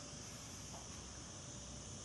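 Cicada singing: a steady, high-pitched buzz that holds level without a break.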